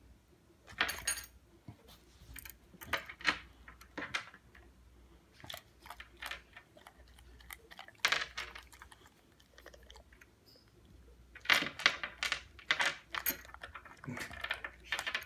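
Small pebbles clattering on a coffee table and clicking against a boxer dog's teeth as he drops them and picks them back up with his mouth, in irregular bursts of clicks, busiest near the end.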